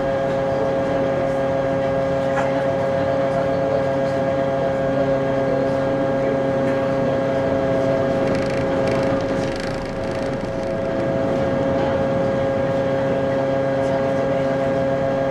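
Steady machinery hum of the car ferry Shirahama-maru, heard inside its forward passenger cabin: a constant drone with one strong mid-pitched tone and lower tones beneath it. A short patch of added hiss comes about two-thirds of the way through.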